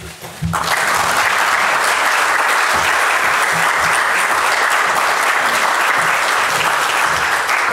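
Audience applauding steadily at the end of a talk, many hands clapping at once; the clapping begins about half a second in.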